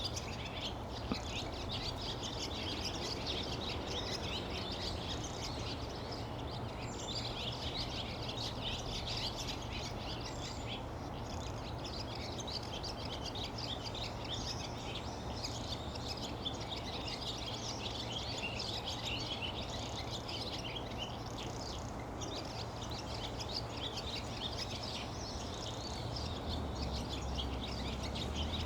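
Barn swallows twittering: a dense, continuous run of quick, high chirps, over a steady low background rumble.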